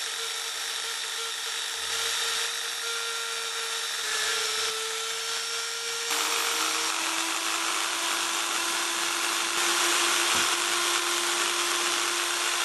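Bench drill press boring a hole through a metal bolt held in a drill-press vise: a steady motor hum under the hiss of the bit cutting metal. The motor tone drops to a lower pitch about six seconds in.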